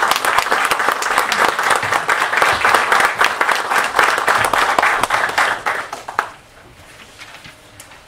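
Audience applauding, a dense patter of many hands that dies away about six seconds in.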